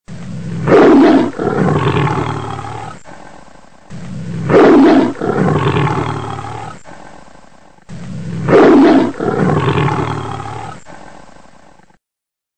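A big cat's roar, the same roar heard three times about four seconds apart, each loud at first and then fading away over a couple of seconds.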